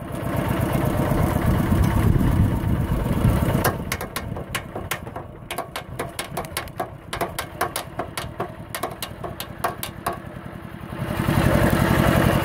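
Single-cylinder diesel engine of a Thai two-wheel walking tractor running. It is loud for the first few seconds, then drops back to a slower, quieter putter with evenly spaced strokes, and rises again near the end.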